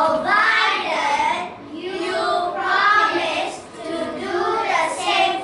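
A group of children singing together in phrases, with short breaks between lines.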